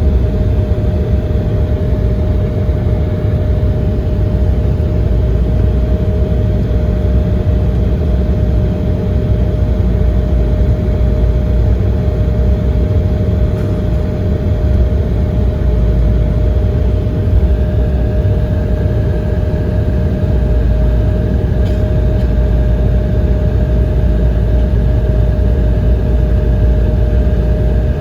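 Cabin noise inside an Embraer 170 on the ground before takeoff: its GE CF34 turbofan engines run with a steady hum over a low rumble. A second, higher tone joins about two-thirds of the way through.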